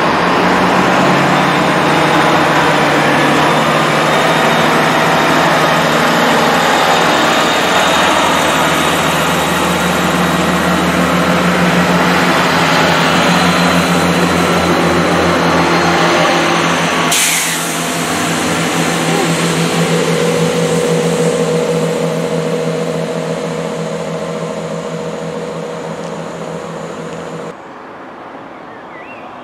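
A GWR diesel multiple unit's engines running with a steady drone as the train moves off along the platform, with wheel and rail rumble and a short hiss just over halfway through. The train sound cuts off suddenly near the end.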